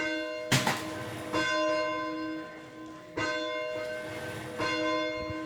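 Church bell struck four times, about one and a half seconds apart, each stroke ringing on into the next. A loud clatter comes about half a second in.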